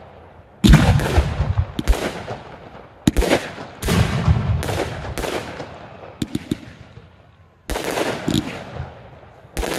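Fireworks aerial shells bursting: a series of about eight sharp booms, each trailing off in a long rumbling echo, the loudest about half a second in, with a few small crackles around six seconds in.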